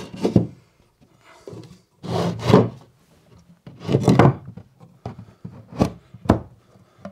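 An OSB offcut being worked into a gap between OSB shelf boards: wood scraping against wood in a few drawn-out strokes, then two sharp knocks near the end as it seats.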